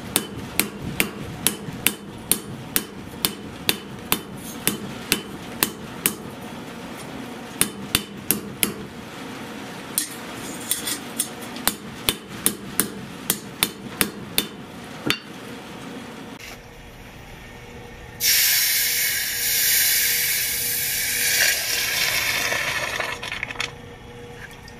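Hand hammer striking hot iron on an anvil, about two ringing blows a second for some fifteen seconds. After a short pause comes a loud hiss lasting about five seconds: the hot iron cross being quenched in a bucket of water.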